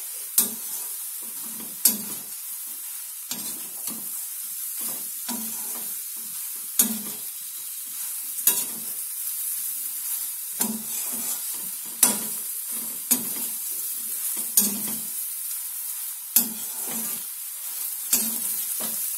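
Idli pieces being stir-fried in a metal kadhai. The oil keeps up a steady sizzle, and a perforated metal spatula scrapes through the food and clinks sharply against the pan every second or two.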